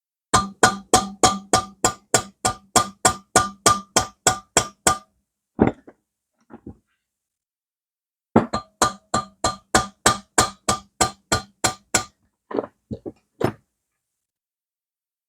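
Rapid, even hammer strikes on a ringing metal part, about four a second, in two runs of a dozen or more blows separated by a pause, with a few single knocks after.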